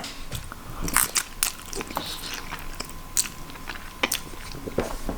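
Close-up chewing of a mouthful of ready-made Chinese noodles with vegetables: irregular short mouth clicks and smacks.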